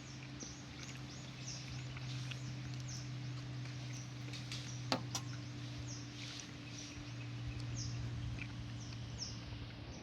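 Birds calling with repeated short, high, downward-sliding chirps, about one or two a second, over a steady low hum. One sharp click comes about halfway through.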